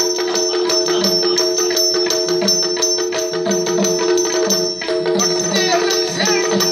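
Live Indian folk music accompanying a string-puppet show: a steady drone under fast, regular drum and cymbal strokes, with higher gliding notes coming in near the end.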